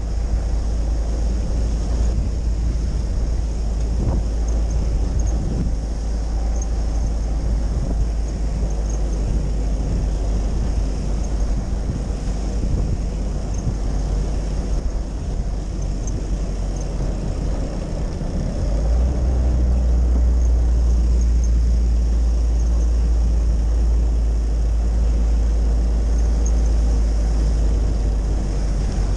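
Willys Jeep driving on a wet road, heard from inside the cab: the engine and drivetrain give a steady deep rumble over road and wind noise, and it grows louder about two-thirds of the way through.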